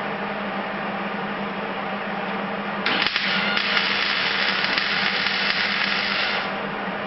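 MIG welder laying a short weld bead on sheet steel: a steady crackling buzz starts about three seconds in and stops after about three and a half seconds.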